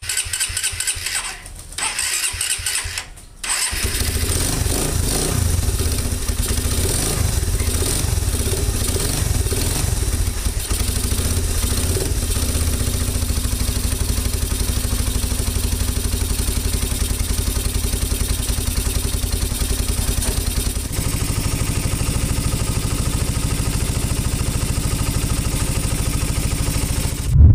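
Suzuki Raider 150's single-cylinder four-stroke engine being started. It runs unevenly and dips twice in the first few seconds, then settles into a steady idle that becomes slightly quieter about 21 seconds in.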